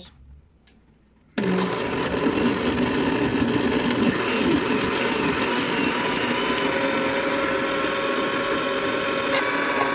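Countertop blender switched on about a second and a half in, its motor running steadily at full speed as it purées chopped tomatoes, onion and water in a glass jar.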